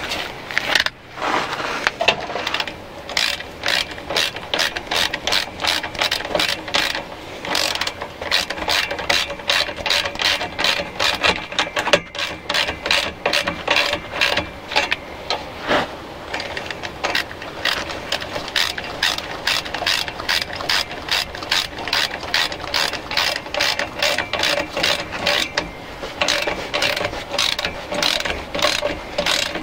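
Ratchet spanner with a 13mm socket clicking in quick, even runs of strokes as it tightens the nut on a car exhaust clamp, with short pauses between runs.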